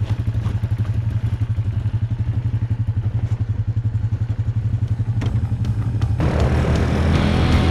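150cc GY6 four-stroke single-cylinder engine running steadily with a fast, even pulse. About six seconds in, music comes in over it.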